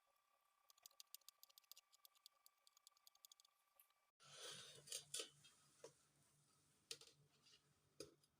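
Faint, quick run of small sharp taps, several a second, from a knife cutting rolled chin chin dough into small pieces on a board. About four seconds in it gives way to a faint low hum with a few scattered knocks.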